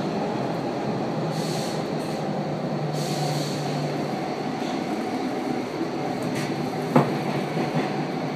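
Stockholm metro C14 car running through a tunnel, heard from inside the car: a steady rumble of wheels on rail with a single sharp knock about seven seconds in.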